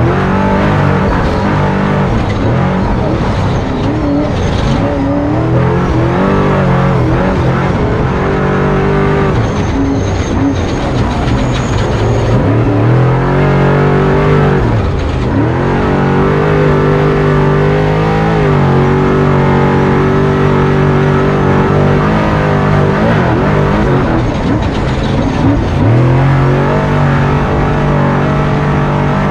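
Off-road truck engine running hard, its pitch dropping and climbing again a few times as the throttle comes off and goes back on.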